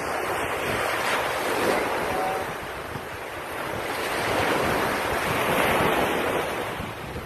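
Surf washing onto a beach mixed with wind buffeting the microphone: a steady rushing noise that swells and eases twice.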